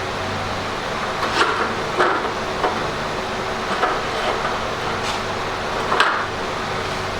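Steady mechanical noise with a low hum, broken by about six light metal taps or clinks spaced irregularly through it.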